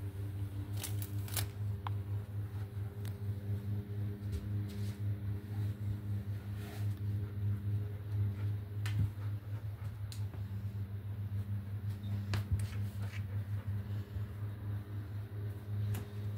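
A steady low machine hum, with scattered light clicks and taps over it.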